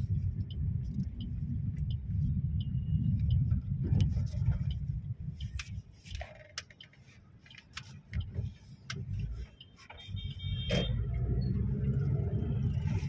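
Low rumble of a car driving, heard from inside the cabin, that drops away for a few seconds in the middle, with scattered light clicks and rattles.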